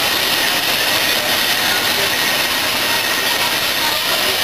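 Loud, steady hiss of steam from a GWR 5101 Class prairie tank locomotive standing in steam, with a faint thin whistle-like tone running through it.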